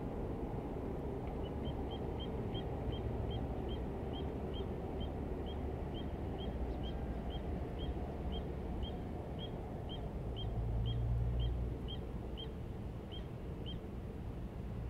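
A bird calling a long series of about thirty short, high, upward-flicking notes that slowly spread out, from several a second to about two a second. Under it a steady low outdoor rumble that swells briefly about two-thirds through.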